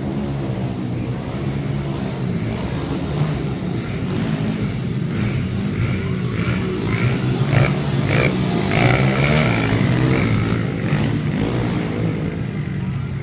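Small dirt bike engines running and revving on a motocross track, growing a little louder in the middle as a bike comes close.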